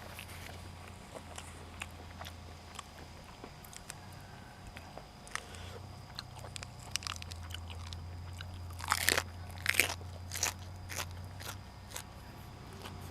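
A person biting and chewing crisp raw vegetables, with scattered crunches and the loudest run of crunches about nine to ten and a half seconds in.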